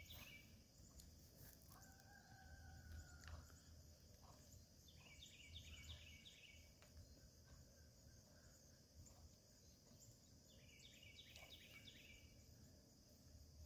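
Faint rural ambience. A songbird repeats a short, quick phrase of several high notes three times, about five seconds apart. A rooster crows once in the distance about two seconds in, all under a steady high hiss.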